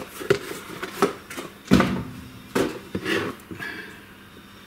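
Packaging being handled: a cardboard box and a clear plastic tool case knocked, slid and set down on a workbench, giving a string of separate clicks and knocks, the loudest a little under two seconds in.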